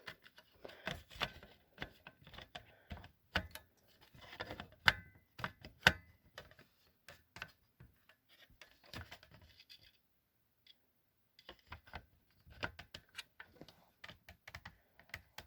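Hands handling small hard objects: irregular light clicks and knocks, with a short pause about two-thirds of the way through.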